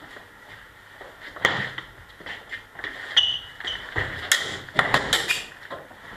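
Steel swords clashing in a sparring exchange: one sharp clash about a second and a half in, then a quick flurry of blade strikes in the second half, some leaving a brief high metallic ring.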